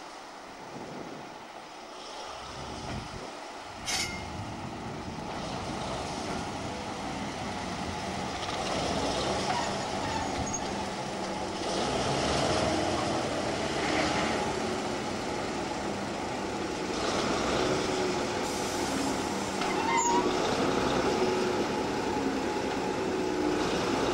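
Diesel shunting locomotive's engine running as it moves slowly along the platform, growing louder as it comes closer, with a sharp click about four seconds in.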